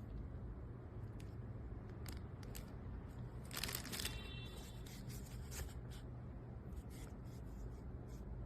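Packaging handled by hand: scattered small crinkles and clicks, with one louder rustling tear about three and a half seconds in.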